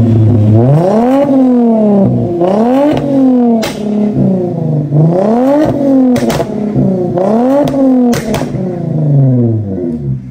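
Toyota Mark X's swapped-in 2GR 3.5-litre V6 being revved from idle about six times in quick succession, the pitch climbing and falling with each blip. There are a few sharp cracks between revs, and it settles back toward idle near the end.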